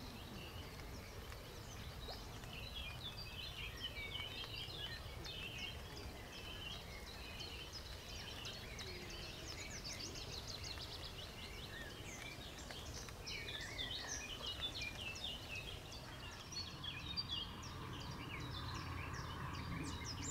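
Several small birds singing and chirping at once, with a fast, high trill about halfway through, over a steady low background rumble.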